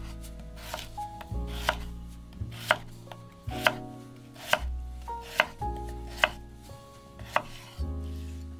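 Kitchen knife slicing through a peeled raw potato and knocking on a wooden cutting board, one cut about every second. Soft background music plays underneath.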